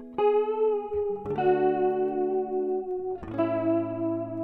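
Background music: a guitar playing held chords that change about three times.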